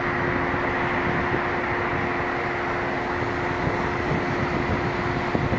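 Steady machinery hum from a container ship under way, with a few constant tones over an even noise, and wind rumbling on the microphone.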